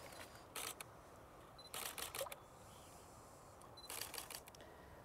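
Camera shutter clicking in three short bursts, the second and third each preceded by a brief high beep like a focus-confirmation beep, as a photographer shoots a netted trout.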